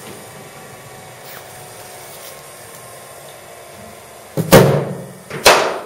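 Two loud knocks under a second apart, over a faint steady hum: a bowling machine firing a cricket ball, then the bat striking it.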